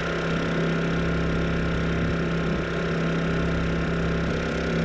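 Honda EU2200i inverter generator's single-cylinder four-stroke engine, converted to run on propane, running at a steady speed under a load of about 1,000 watts.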